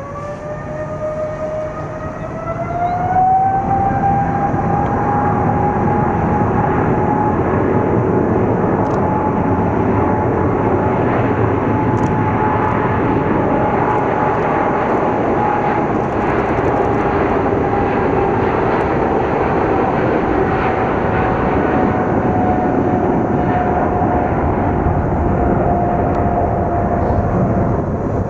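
Boeing 777's twin turbofan engines spooling up to takeoff thrust: a whine rising in pitch over the first few seconds, then loud and steady as the airliner starts its takeoff roll, the tone sinking slightly near the end.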